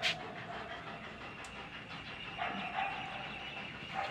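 German Shepherd dog panting, with a short sharp rattle right at the start.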